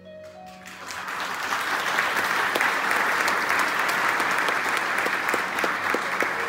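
Theatre audience applauding, the clapping building over about the first second and then holding steady, just after a held closing note from the orchestra.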